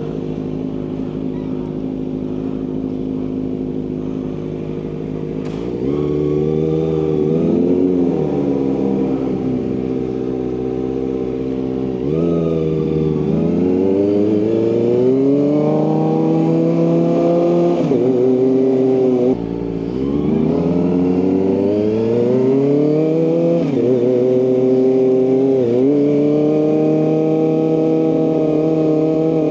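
Kawasaki ZX-25R SE's inline-four engine through an Austin Racing aftermarket exhaust, idling steadily for about five seconds, then pulling away, its pitch climbing and dropping back several times as it revs up and shifts through the gears.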